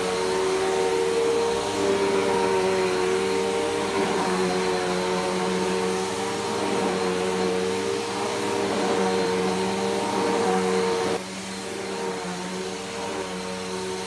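Bissell PowerForce Helix Turbo upright vacuum cleaner running steadily as it is pushed over a fabric sheet, a motor hum with airflow noise. About eleven seconds in, the sound drops abruptly to a quieter level.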